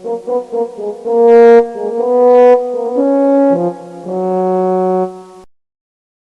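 A brass instrument plays a short comic tune as a sound effect: a few quick notes, then three held notes and a final lower note held longest, which stops abruptly.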